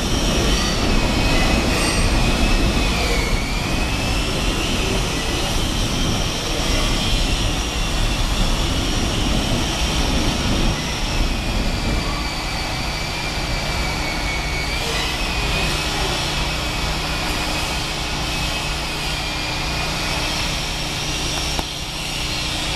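R68 subway train running over elevated steel track and moving away, its wheels squealing in several high, wavering tones. The low rumble thins out about halfway through while the squeal carries on.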